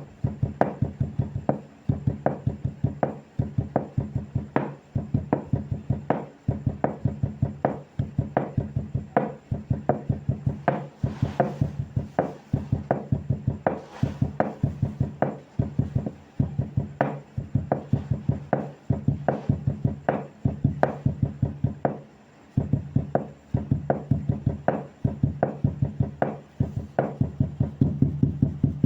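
Wood being struck in quick, regular runs of knocks, about three or four a second, each with a short pitched ring, the runs broken by brief pauses.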